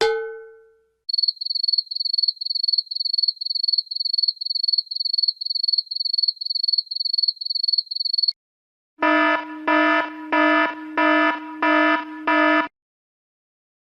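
Sound effects: a short ring fading out, then a high-pitched electronic alarm beep repeating about two and a half times a second for about seven seconds, then a harsh buzzer sounding six times in quick succession.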